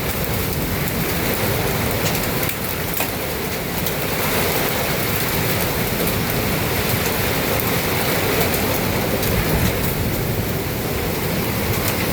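Heavy rain pouring down steadily, with scattered sharp ticks of hail striking a porch awning.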